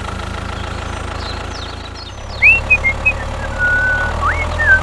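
Tractor engine idling with a steady low chugging hum. From about halfway, short high chirps and whistles sound over it.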